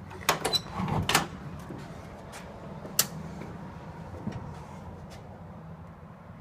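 A quick cluster of knocks and clatters in the first second or so, then one sharp click about three seconds in, over a low steady hum.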